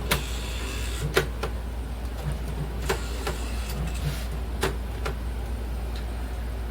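Air conditioner humming steadily, with a handful of sharp, irregularly spaced clicks over it.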